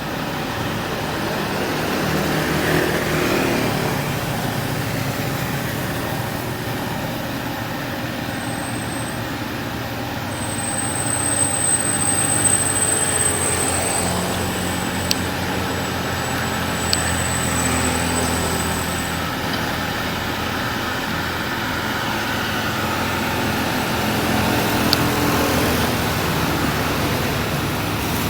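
Heavy truck diesel engines running on a steep climb, with a thin high whistle for about ten seconds in the middle and a few sharp clicks.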